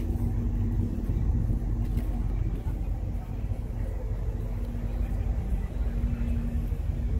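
Low, steady engine rumble with a constant hum that drops out briefly a few times, with faint crowd chatter behind it.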